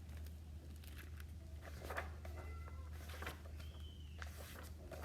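Faint rustles and light taps of a picture book being opened and its pages turned, over a low steady hum.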